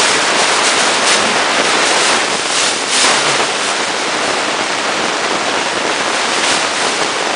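Steady loud hiss with no speech.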